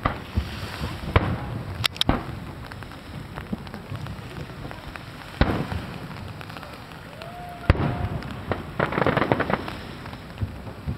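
Aerial fireworks going off: a series of sharp bangs from shell bursts, with a dense spell of crackling near the end.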